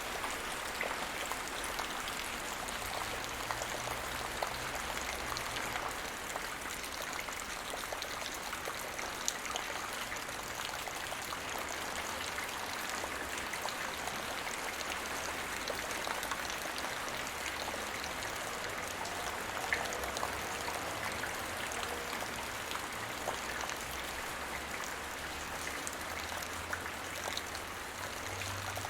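Light rain falling steadily on the ground, a dense patter of many small drop impacts.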